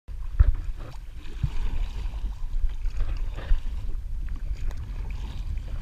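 Water splashing and dripping from a double-bladed kayak paddle's strokes, with a few sharper splashes standing out, over a steady low rumble.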